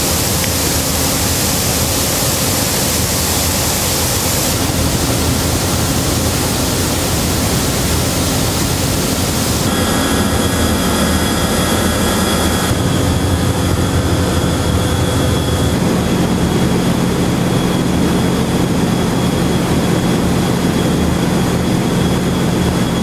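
Loud, steady roar of an industrial cooling tower, the rush of falling water together with its fans and pumps. The sound changes abruptly several times, with a thin motor whine in the middle and a steady low hum in the last part.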